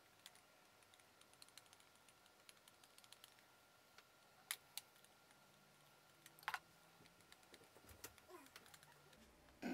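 Near silence with faint small clicks of a liquid-foundation wand applicator being worked against and into its tube, with two sharper clicks about four and a half and six and a half seconds in. The tube is running nearly empty.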